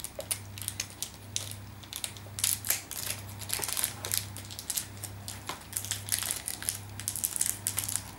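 Small clear plastic toy wrapper being crumpled and pulled open by hand: an uneven run of crinkling crackles, busiest after the first couple of seconds.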